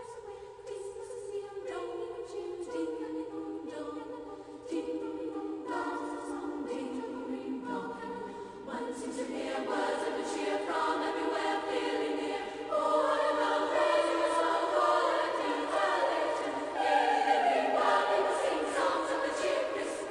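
Background music: a choir singing slow, held chords that change every second or two, swelling louder about halfway through and again near the end.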